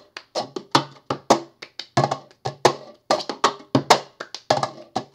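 Cup-game rhythm played fast: hand claps, slaps on a red plastic cup and the cup knocked down on a wooden desk, about four hits a second.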